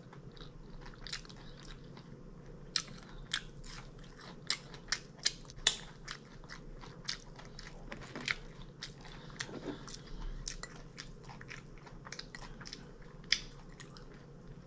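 A person chewing crunchy food with the mouth close to the microphone, a string of sharp, irregular crunches and bites, busiest in the middle.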